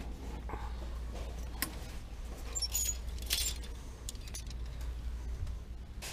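Metal clothes hangers clinking and scraping on a rack as the garments are pushed along, in a few short jingles.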